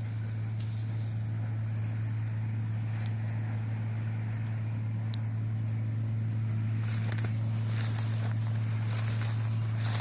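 Steady low drone of a John Deere 630 combine harvester's Perkins diesel engine running under harvesting load. From about seven seconds in, dry crop stalks rustle and crackle close by.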